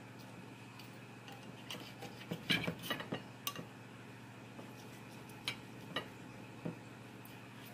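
Steel knife and fork clinking and scraping against a glass plate while cutting slices of tri-tip: a quick flurry of clinks about two to three seconds in, then a few single clinks.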